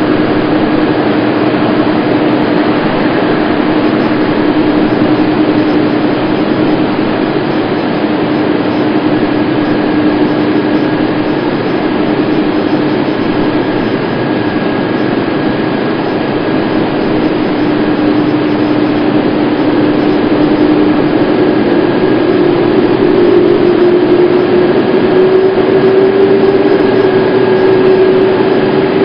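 Jet aircraft engines running at taxi power: a steady loud rumble with a whining tone that rises slightly in pitch about three-quarters of the way through.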